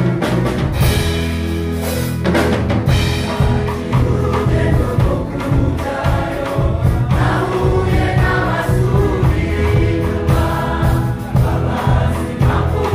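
Gospel choir singing in several voices into microphones, over instrumental accompaniment with strong, deep bass notes and a beat.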